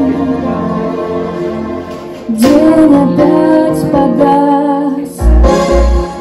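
A woman singing a Russian-language song live into a microphone over instrumental accompaniment with keys. Her voice grows louder a little over two seconds in, and a deep bass comes in near the end.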